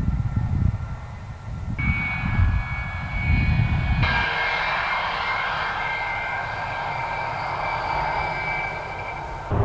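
Jet fighter's turbojet engine whining steadily as the aircraft moves along the runway. The high whine comes in about two seconds in and grows stronger and fuller about four seconds in. A low, uneven rumble fills the first few seconds.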